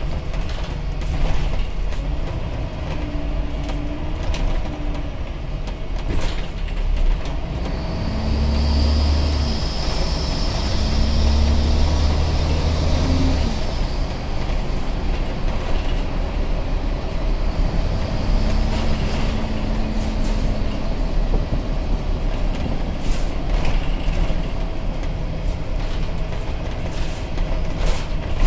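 Interior sound of a Scania N94UD Omnidekka double-decker bus on the move, its five-cylinder diesel engine running steadily and pulling harder for several seconds near the middle. A high whine comes and goes twice, with scattered rattles and clicks from the body.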